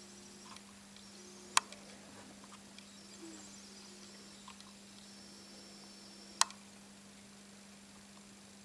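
A steady low hum, with two sharp clicks about five seconds apart.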